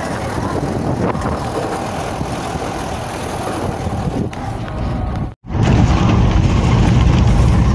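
Vehicle engine and road noise while driving on a rough dirt road. About five seconds in the sound cuts out for a moment, then comes back louder as a low rumble heard from inside the cab.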